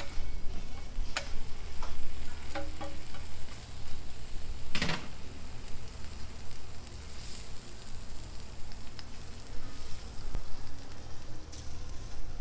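Bacon strips sizzling on a flat-top griddle over a low steady hum, with a metal spatula clicking and scraping against the griddle a few times and one longer, louder scrape about five seconds in.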